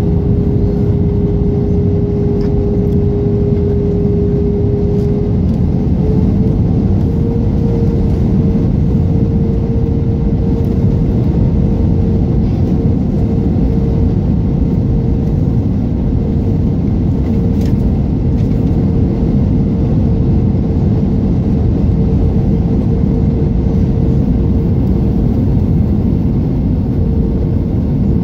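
Cabin noise of an Airbus A320 with sharklets on approach, heard from a window seat over the wing: a loud, steady rush of airflow and engine, with a steady hum whose pitch steps up slightly about six seconds in.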